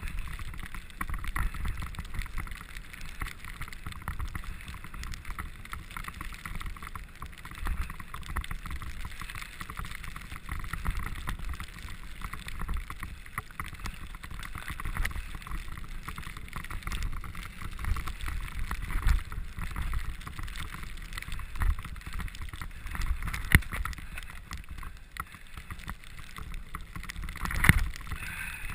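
Bicycle ridden over a snow-covered forest trail: a steady rumble from the tyres with a constant rattle of small knocks and clatters from the bike, and one louder knock near the end.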